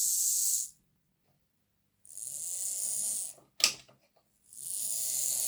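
Lima Class 55 Deltic OO gauge model's motor and gear train whirring in three short runs of a second or so, stopping dead in between, with a sharp click between the second and third run. It runs quieter with a replacement gear fitted.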